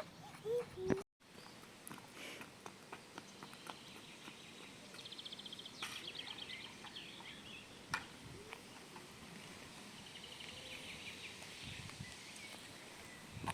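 Birds calling over a low, steady background, with a fast high trill about five seconds in and again near ten seconds, and scattered short clicks.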